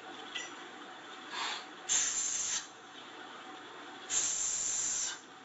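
Two forceful breaths blown out by a man lifting a kettlebell. A short one comes about two seconds in and a longer one of about a second near four seconds in, with a fainter breath just before the first.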